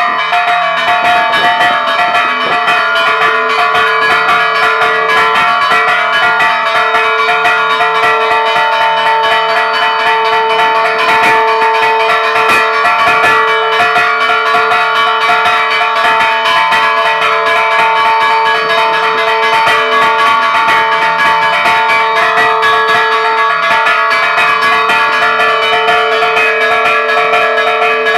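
Church tower bells chimed by hand in a fast festive peal (toque de fiesta), the clappers pulled by ropes. The strikes come quick and continuous over the bells' lasting ring, with a deep bell tone held throughout.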